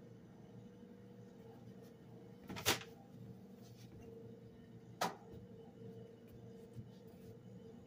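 Two short, sharp household knocks about two and a half seconds apart, over a faint steady room hum.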